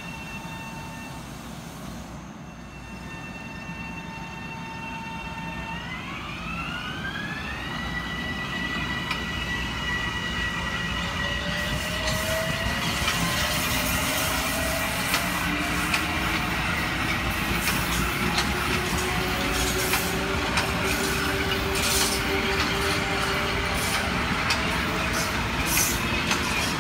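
Bombardier M7 electric multiple unit pulling out: its propulsion whines in steady tones that jump up in pitch about six seconds in, then more whines rise slowly as it gathers speed. The sound grows louder as the cars roll by, with sharp wheel clicks over the rails.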